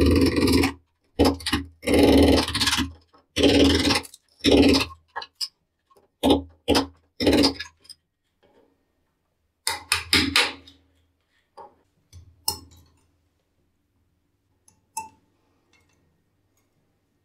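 Metal parts of a concealed shower mixer being handled and fitted at the wall: a run of short scraping bursts in the first half, then a few scattered clicks and clinks.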